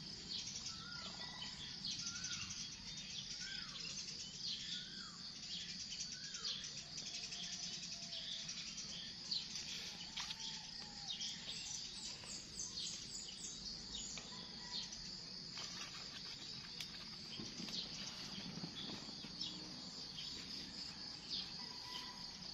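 Outdoor ambience of a steady, high insect drone, with birds calling over it. For the first six seconds or so, one bird repeats a short call about once a second. A faint low hum runs underneath.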